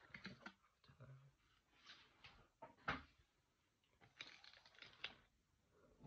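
Faint, scattered rustles and light taps from hands handling unboxing packaging: a cardboard box, plastic bags and the card's packaging.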